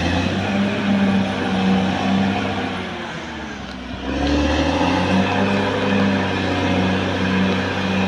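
Caterpillar D6R XL bulldozer's diesel engine working under load, easing off about three seconds in and building up again about a second later.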